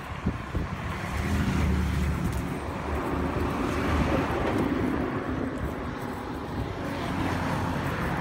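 A motor vehicle passing on the road: a low engine hum with tyre and road noise that swells about a second in and stays up.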